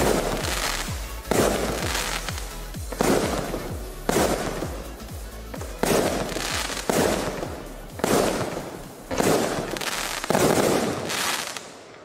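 A 0.8-inch, 49-shot firework cake firing its final shots: quick launch thumps and nine loud bursts about a second apart, each trailing off in crackle from the crackling-willow stars. It stops about eleven and a half seconds in.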